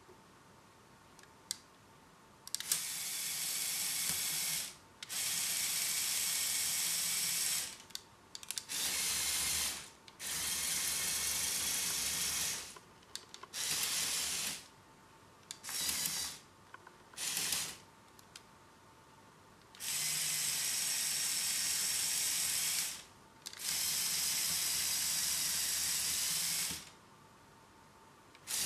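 Remote-controlled LEGO Technic tracked vehicle driving in stop-start runs: its electric motors, plastic gears and tracks whir and rattle in about nine spells of one to three seconds, stopping between commands.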